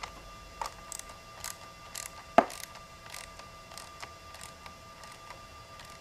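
Light metallic clicks and clinks of a small wrench working the brass terminal bolts of a lithium motorcycle battery as they are snugged down, irregular and a few to the second, with one sharper click about two and a half seconds in.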